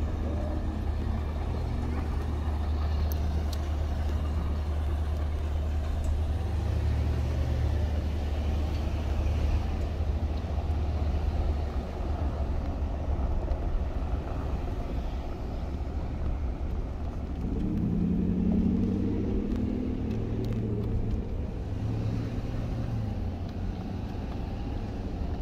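Steady low rumble of idling engines and machinery. About two-thirds of the way through, a louder engine sound rises and falls over a few seconds, like a vehicle passing close by.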